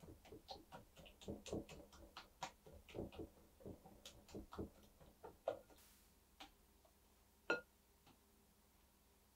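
Faint, quick clicks and taps of a silicone whisk beating pumpkin cheesecake batter in a glass mixing bowl, about three or four a second, stopping about six seconds in. Then a single sharper clink against the glass bowl, about a second from the end.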